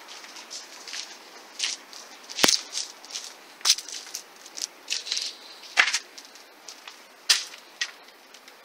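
Footsteps crunching over grit and debris on a littered floor, with a sharp crunch about every half second. The loudest crunches come about two and a half and six seconds in.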